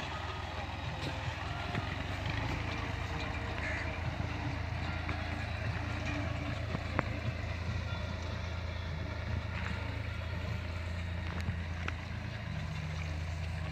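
Tractor engine running steadily with a low drone while it drives a boom sprayer over a cotton field.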